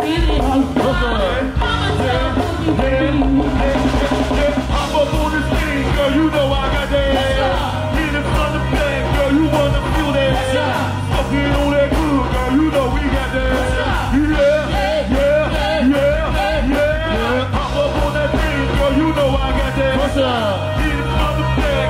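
Live band playing a song with a steady beat, bass, and a lead singer's voice over it.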